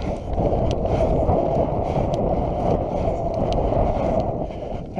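Steady rumbling wind and rubbing noise on a body-worn action camera's microphone as the wearer moves, with a few faint clicks.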